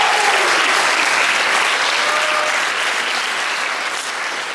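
Audience applauding, with a couple of short voiced cheers early on and midway; the clapping eases slightly toward the end.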